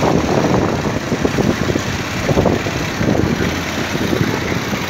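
Motorbike engine running while riding along a street, with wind rumbling on the microphone.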